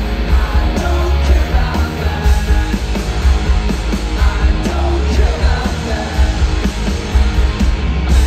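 Loud rock music with heavy bass and singing, running without a break.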